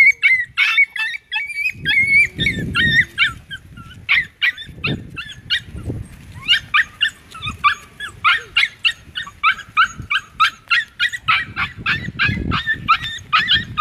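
A dog yelping and whining in quick, high-pitched cries, several a second, while mating with a husky. The cries thin out about four seconds in and come thick again from about six and a half seconds on.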